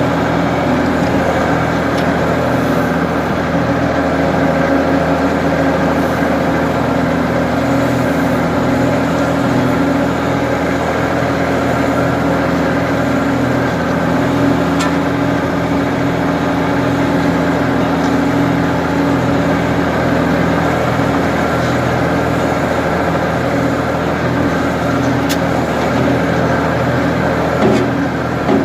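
Ford 550 backhoe's engine running steadily under way, with a few clanks near the end.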